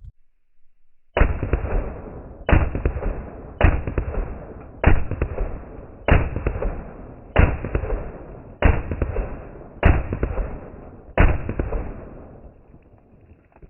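Nine rifle shots from a 16-inch AR-style rifle firing 5.56 mm ammunition, evenly spaced about a second and a quarter apart, each followed by a long echoing tail.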